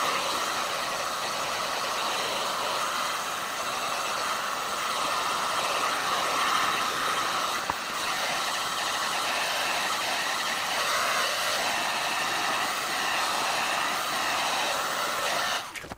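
Electric heat gun running, a steady rush of air from its blower, drying fresh emulsion paint on the wing. It switches off suddenly just before the end.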